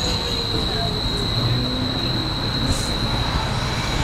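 Portland streetcar slowing as it pulls in to a stop: its traction motor whine falls slowly in pitch, with a steady high-pitched whine that fades out about three seconds in, over a low rolling rumble.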